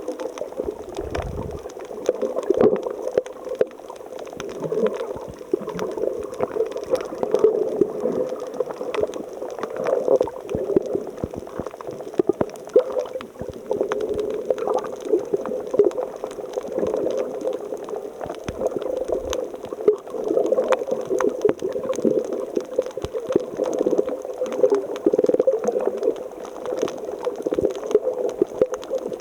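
Water gurgling and churning, with many small pops and crackles and uneven swells in loudness.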